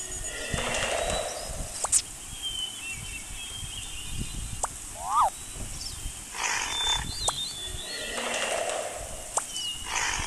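Animal call sound effects: several short, rough calls and a quick rising chirp, with thin high whistles behind them, repeating about every six seconds.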